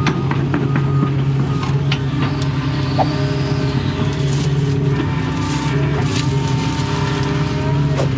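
Doosan excavator's diesel engine running steadily at working speed, with a higher whine that shifts in pitch and a few short knocks, the sharpest near the end.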